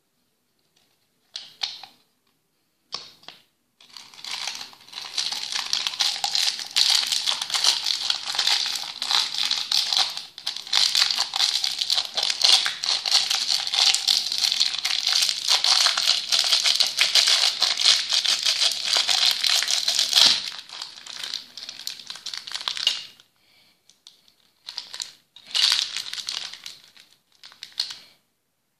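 Clear plastic bag of round candies crinkling as it is handled and pulled from a hollow plastic candy container, the candies rattling inside. Two short crinkles, then steady crinkling for about sixteen seconds, then a few short bursts near the end.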